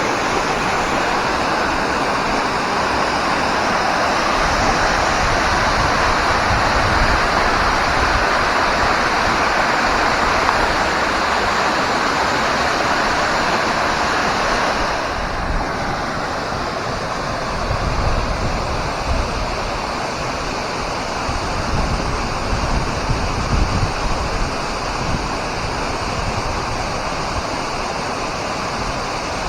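Steady rushing roar of a waterfall, turning a little duller about halfway through, with some low rumbles of wind on the microphone in the second half.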